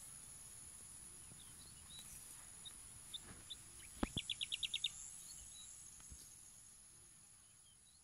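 Insect chorus of steady high-pitched trilling, with scattered short high chirps. About four seconds in comes a sharp upward sweep, then a rapid run of about seven high notes in under a second.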